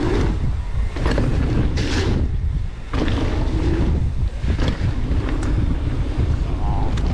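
Wind rushing over a helmet-mounted action camera's microphone while a mountain bike rolls fast on a dirt trail, with a steady low tyre rumble and several short rattles and clatters.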